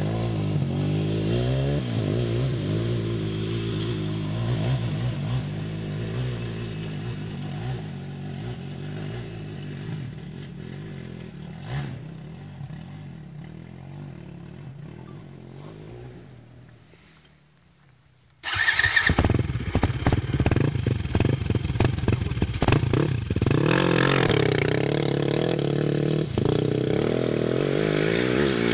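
Off-road dirt bike engines. One bike revs as it rides away up a hill, its sound fading over about sixteen seconds to near quiet. Then, about eighteen seconds in, a second dirt bike's engine comes in suddenly and loudly, revving hard with rising and falling pitch as it pulls away.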